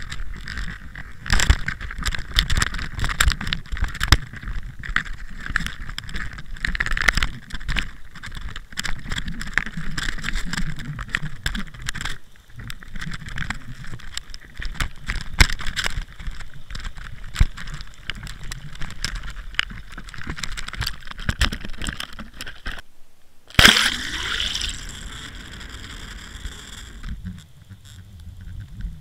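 Water gurgling and sloshing around an underwater camera hanging on a mackerel handline, with frequent clicks and knocks against the housing. About 23 s in the sound drops out briefly, then comes one loud knock that fades away.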